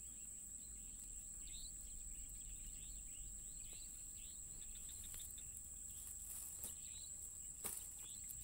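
Crickets trilling in a steady, high, unbroken drone, with short falling chirps repeating irregularly underneath. A couple of faint clicks come near the end.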